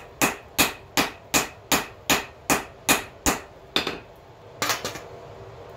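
Hand hammer striking a steel billet on an anvil to straighten it, in a steady run of ringing blows about two and a half a second. The run stops about three and a half seconds in, with two more spaced-out blows after it.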